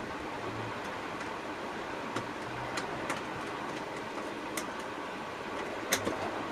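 Faint, sharp clicks of a tiny screwdriver and small screws on the brass movement of a Howard Miller grandfather clock, about half a dozen, the loudest about six seconds in, over a steady background hiss.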